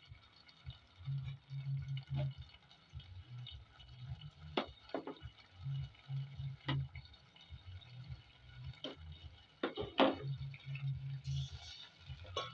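Egg curry simmering in a pot while a spoon knocks against the pot about eight times, spread out, as boiled eggs are added and stirred in.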